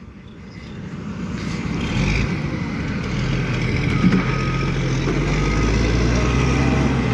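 Heavy diesel engine running, growing louder over the first two seconds and then holding steady with a low hum.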